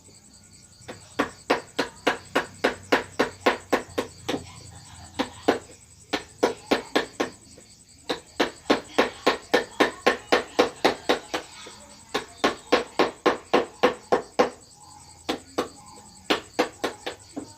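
Wood carving: a mallet tapping a carving chisel in quick runs of sharp knocks, about four a second, with short pauses between the runs.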